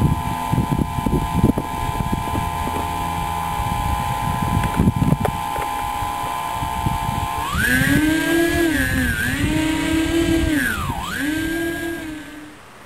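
Brushless electric motors of an RC model airplane whining at a steady pitch, with wind gusting on the microphone. About seven and a half seconds in, the motor note changes, rising and falling with the throttle and dipping twice, then fades out near the end.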